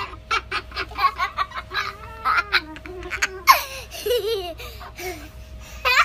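Moluccan cockatoo making laugh-like calls: a rapid string of short chattering bursts with a wavering pitch and a falling squawk about halfway through.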